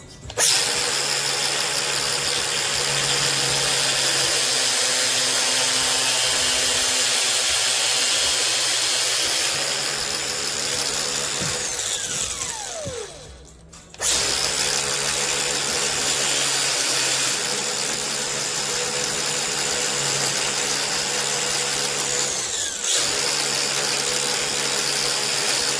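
Angle grinder with a cutoff wheel cutting braided steel fuel hose, running loud in two long stretches. About thirteen seconds in the motor winds down with a falling whine, then it starts again and cuts on to the end.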